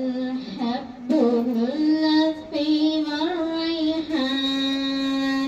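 A girl singing alone into a microphone, with no instruments, in long held notes that slide between pitches. The last note is held steady for over a second near the end.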